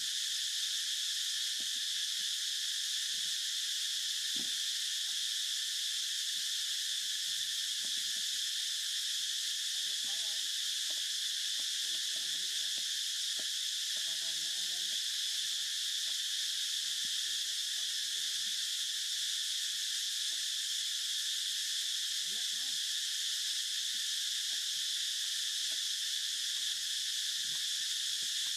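Steady high-pitched chorus of forest insects, an even unbroken hiss.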